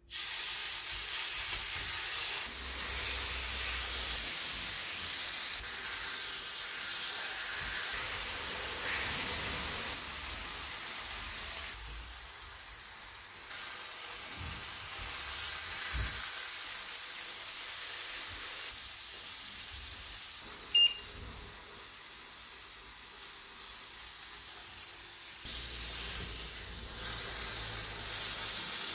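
Marinated chicken breasts sizzling on a hot ridged grill pan over high heat: a steady hiss that starts suddenly as the meat goes into the pan. A short beep sounds about two-thirds of the way through.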